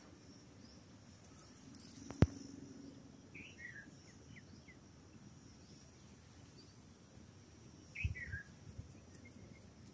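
Faint outdoor garden ambience: a steady high insect drone, with short falling bird chirps twice, about three and a half and eight seconds in. A single sharp click a couple of seconds in is the loudest sound.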